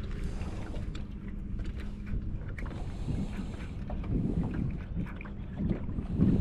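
Low wind rumble with a faint steady hum and scattered light clicks and knocks.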